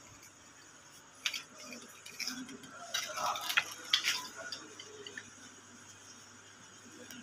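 A few short, sharp clicks and taps over a low, steady hum, with faint voices in the background.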